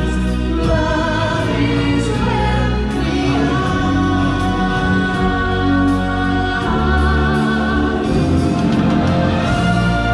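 Live stage-show music: a choir singing held, sustained notes over a full band or backing track with a strong, steady bass.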